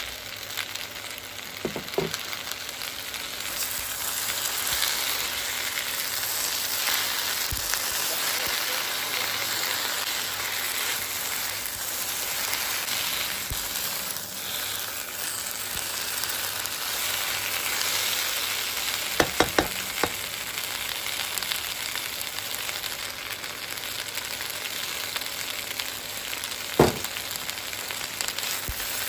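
Chopped okra sizzling steadily as it fries in a frying pan, stirred with a spatula. A few sharp knocks cut through the sizzle: one early, a quick run of three about two-thirds of the way through, and a single louder one near the end.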